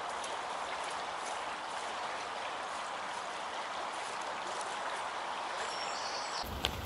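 Steady rush of flowing river water, with faint ticks and crackles from campfire coals being poked with a wooden stick. Just before the end the sound changes abruptly to a low rumble with one sharp click.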